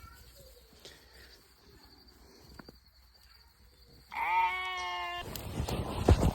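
A single bleat from a goat or sheep, about a second long, dropping quickly in pitch and then holding steady. It is followed by rustling and knocks of the phone being handled.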